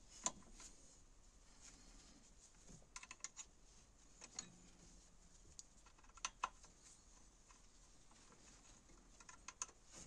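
Faint, scattered light clicks and taps of an Allen key and gloved hands on the metal screw and fittings of a VW T4's EGR valve, some in small quick clusters.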